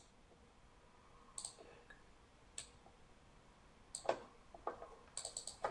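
Faint computer mouse clicks: single clicks about a second apart, then a quick run of clicks near the end.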